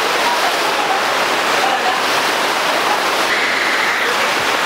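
A steady, loud rushing noise that holds an even level throughout, with a few faint, brief tones above it.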